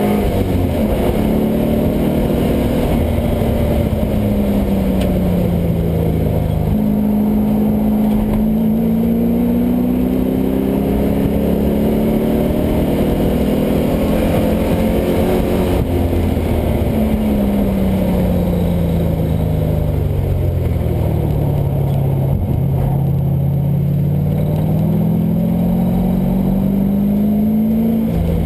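LS1 5.7-litre V8 swapped into a Mazda Miata, running hard on track. The engine note slowly drops over the first several seconds, then climbs. It drops again in the middle and climbs again near the end, with a sudden step in pitch about seven seconds in.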